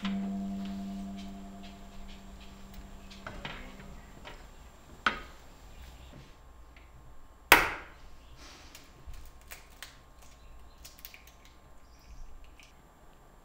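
Kitchen knocks and taps while making chai: a sharp knock about five seconds in, a louder knock with a short ring about halfway through, then light scattered taps. A plucked harp-like music note fades out at the start.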